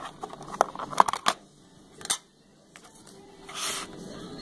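A silver coin clicking and tapping as it is handled and set down for weighing, with several sharp clicks in the first two seconds.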